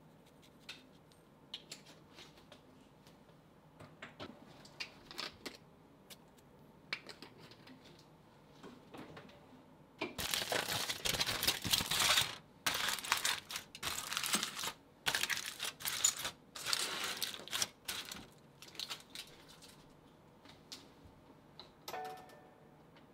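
Aluminium foil crinkling loudly in bursts as it is scrunched and folded closed around a dish, after several seconds of light taps from a seasoning shaker being shaken over the food. A short ringing clink comes near the end.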